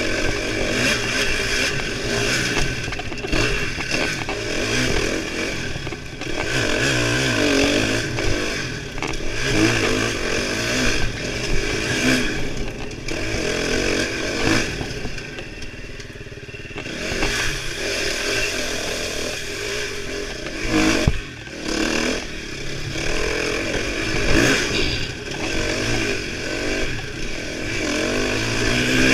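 KTM dirt bike engine revving hard and easing off with the throttle as it is ridden down a wooded trail, its pitch rising and falling through the run. It drops off for a moment about halfway through, and a sharp knock comes about two-thirds of the way in.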